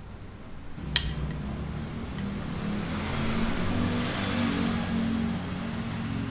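Background music that comes in about a second in and swells toward the middle, with a single sharp clink as it starts.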